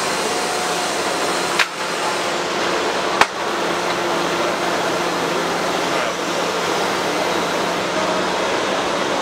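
Two sharp metallic clicks about a second and a half apart as the table saw's sliding table extension is pushed and set. They sit over a steady machine noise with a low hum.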